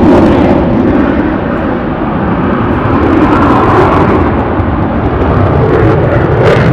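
Loud engine noise of an airplane flying overhead, dipping slightly about two seconds in and then building again.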